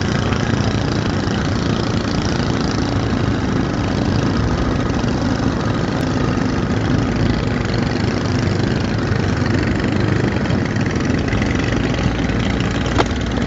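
Small boat's motor running steadily under way, with a single sharp click near the end.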